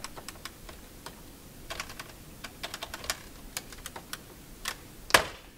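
Buttons being pressed on a wall-mounted office phone's keypad: a run of small, irregular clicks, with a louder click about five seconds in.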